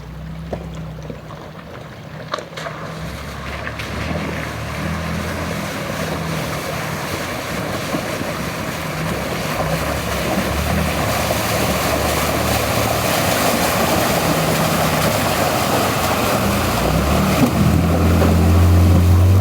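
Pickup truck driving through a creek crossing: water rushes and splashes around the truck over its running engine, the splashing growing louder as it goes. Near the end the engine gets louder.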